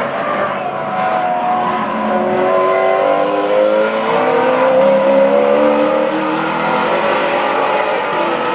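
Several Maserati GranTurismo MC Trofeo race cars running at speed, their V8 engine notes overlapping at different pitches. The notes rise and grow loudest about halfway through, then ease off a little.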